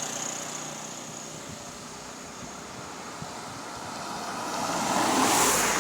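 Road traffic passing: the noise of one vehicle fades away at the start, and another vehicle approaches and goes by, loudest near the end.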